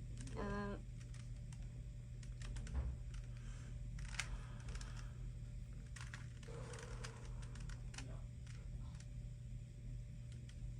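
Plastic Rubik's Cube layers being twisted by hand: irregular quick clicks and clacks.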